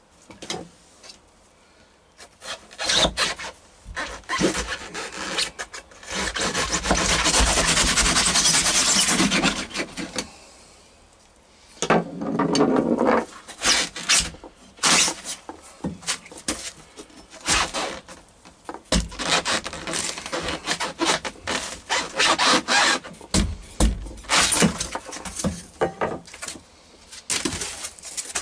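A boat floor being scraped and torn out by hand: irregular rough scraping strokes, with a steady grating stretch of about four seconds a quarter of the way in and a shorter one just after.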